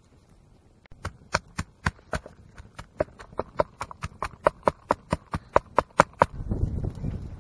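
A wooden pestle pounds garlic cloves and red chillies in a mortar, a run of sharp, regular strikes at about four a second. Near the end the strikes stop and a steady rough noise takes over.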